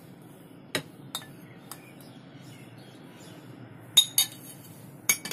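A spoon clinking and scraping against porcelain bowls while sauce is spooned out. There are a few light clinks in the first two seconds, then sharper clinks about four seconds in, the first of them the loudest.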